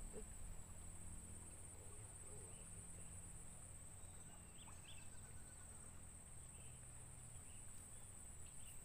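Faint outdoor ambience: a steady high-pitched insect drone with a few faint bird chirps.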